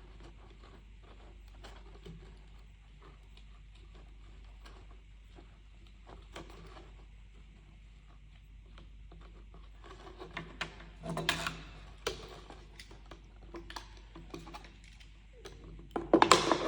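A plastic bottle being cut open, with scattered clicks and crinkling of the plastic. The crackling grows louder for a couple of bursts about two-thirds of the way in and again near the end.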